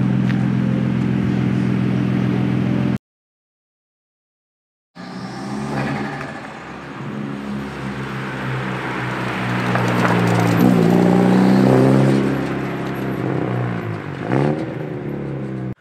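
Infiniti G35 coupe's 3.5-litre V6 through a new single-exit blast-pipe exhaust: a steady drone as the car pulls away, breaking off for about two seconds, then the engine revving up and down as the car accelerates, loudest about ten to twelve seconds in.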